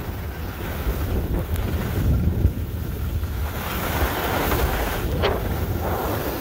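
Wind buffeting the microphone of a camera carried by a skier moving downhill, with the hiss of skis sliding over packed snow.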